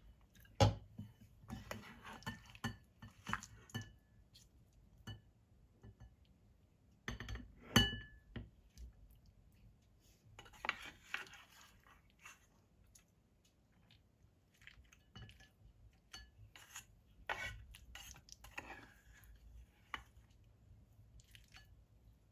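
A ladle scooping squid adobo from a stainless steel pot into a ceramic bowl: scattered clinks and knocks against the pot and bowl, with wet scraping between. The two loudest knocks come about half a second in and near eight seconds.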